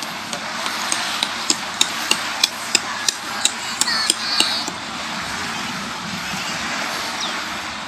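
Hammering: about a dozen sharp strikes, roughly three a second, each with a short metallic ring, stopping about four and a half seconds in, over a steady outdoor background hiss.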